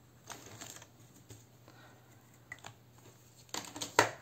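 Sharpie-type marker scratching on a laminated savings-challenge card, then scattered light clicks and a sharper clack near the end as the card is lifted out of the plastic binder.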